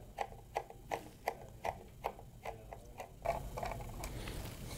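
Small screws being driven by hand with a screwdriver into the plastic back of a wireless access point: regular soft clicks, about two or three a second, turning into a rougher scraping about three seconds in.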